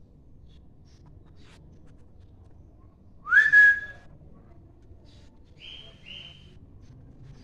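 Parrot whistling: one loud whistle about three seconds in that swoops up and then holds a steady note for under a second, followed near the end by two short, fainter, higher notes.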